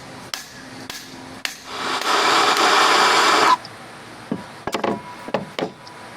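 Metal tools clinking and knocking while head bolts are worked loose on an outboard powerhead. Partway through, a loud steady rush of noise lasts about a second and a half and stops abruptly.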